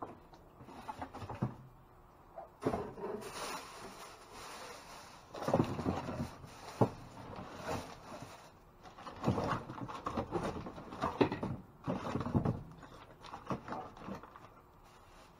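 Rummaging through a dumpster's contents: irregular rustling and scraping, with several sharp knocks as things are shifted and handled.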